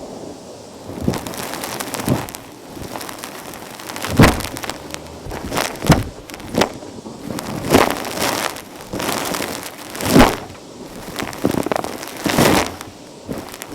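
Vacuum cleaner nozzle sucking up crunchy, fluffy dirt, with loud crackling bursts in irregular strokes about every one to two seconds.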